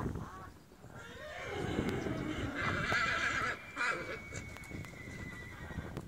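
A horse whinnying: one long neigh that starts about a second in, is loudest around the middle and fades out near the end.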